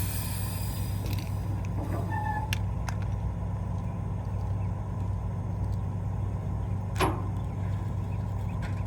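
Excavator engine running steadily with an even low hum. There is a single sharp click about seven seconds in.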